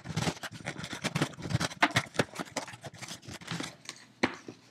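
A cardboard shipping box and its packing being opened by hand: irregular crackling, scraping and rustling, with one sharp click near the end.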